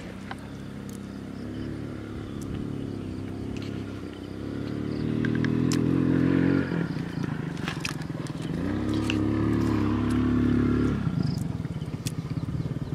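An engine speeding up twice, its pitch rising each time. The longer rise cuts off suddenly about halfway through, and the shorter one ends near the end. Light clicks run throughout.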